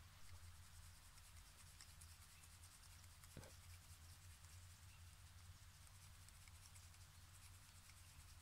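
Near silence: a faint steady low hum, with one soft tap about three and a half seconds in.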